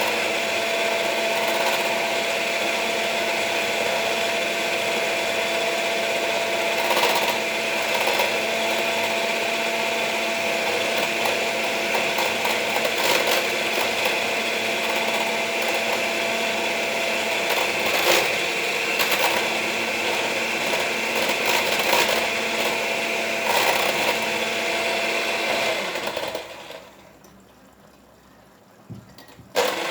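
Small electric mixer whipping banana and honey into a thick foam; its motor runs steadily with a constant whine, cuts out about 26 seconds in, and starts up again just before the end.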